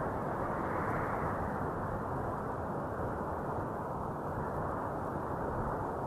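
Steady wind noise, a dense low rush with no tones in it, swelling slightly about a second in and easing gradually after.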